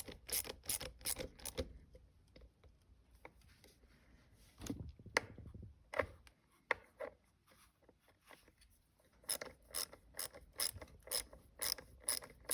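Hand ratchet with a T40 Torx bit clicking in even strokes, about three clicks a second, as bolts are run down snug. The clicking stops for several seconds of scattered light knocks and starts again about nine seconds in.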